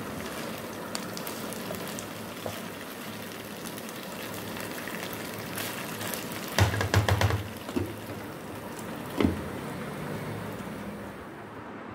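Macaroni and vegetables sizzling in a non-stick wok while a spatula stirs and scrapes the pan. A quick run of loud knocks and clatter comes just past the middle, and one more sharp knock follows about two seconds later.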